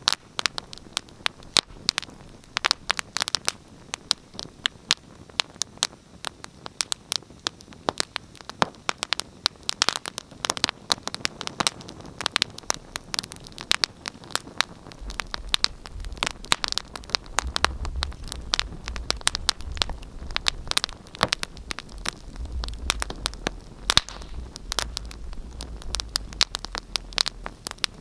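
Wood fire crackling in a fireplace, with many irregular sharp pops and snaps. A low rumble comes in about halfway through.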